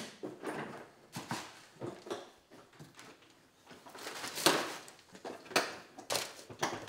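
Scattered clicks, knocks and rustles of a plastic tool case and papers being handled on a workbench, the loudest knock about four and a half seconds in.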